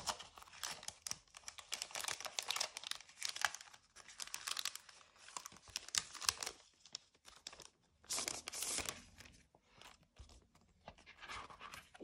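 Thin clear plastic sleeve crinkling and rustling as a calendar is slid out of it, in irregular bursts that thin out over the last few seconds.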